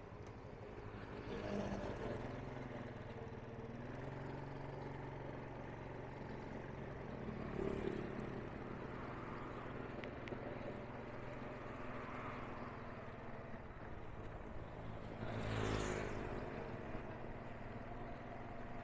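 Road traffic heard on the move: a steady engine hum with road noise. Three vehicles pass along the way, the last and loudest a few seconds before the end.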